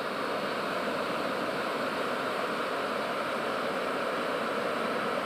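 Steady rushing of river water flowing out below a hydroelectric dam's spillway, an even hiss-like noise with no breaks.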